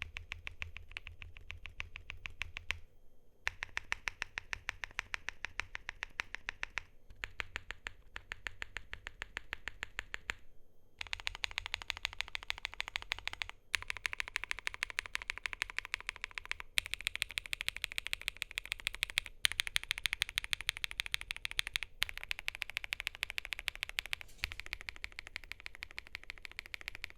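Fast typing on a KiiBOOM Moonshadow 81 mechanical keyboard with lubed Gopolar OUTVA Yang linear switches on a polycarbonate plate: a steady run of muted keystroke clacks, several a second, with a few brief pauses.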